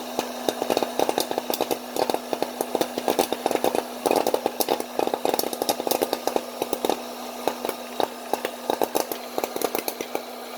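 Popcorn kernels popping rapidly, many sharp pops a second, over a steady machine-like hum. The popping is thickest about four to five seconds in and thins out toward the end.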